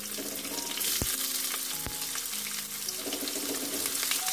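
Chopped onions sizzling in hot oil with whole cumin in a metal kadai, a steady frying hiss. Two sharp clicks come about one and two seconds in.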